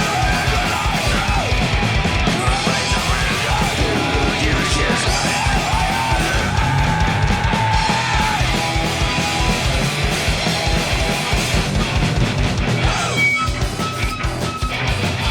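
Live punk/heavy rock band playing loud, with pounding drums, distorted guitar and shouted vocals. Near the end the band thins out and a few held guitar notes ring out.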